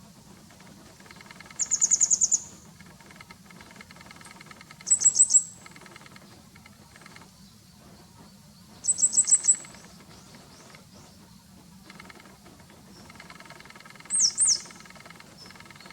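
Grey wagtail calling: four short bursts of rapid, sharp, very high-pitched notes, a few seconds apart.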